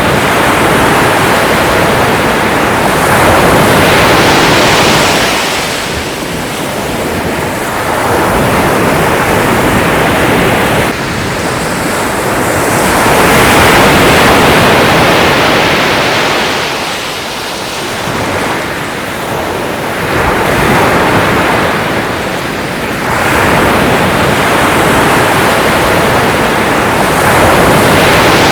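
Sea waves breaking and washing ashore: a loud, continuous rush of surf that swells and eases every few seconds.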